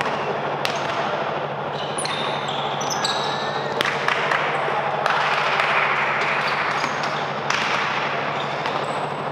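Basketball game play: the ball bouncing and striking on the court, brief high squeaks from shoes around two to four seconds in, and players' voices over a steady background din.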